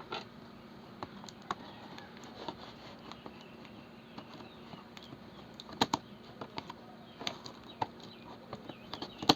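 Hands opening a cardboard headset box: scattered small clicks and rustles of the packaging being handled, with two sharper clicks close together about six seconds in.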